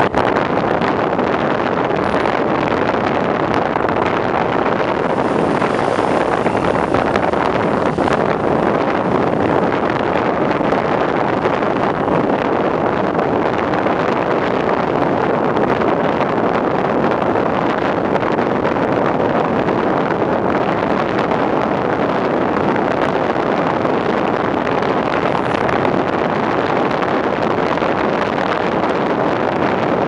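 Steady wind rushing over the microphone of a vehicle moving along a road, with engine and road noise mixed in beneath it.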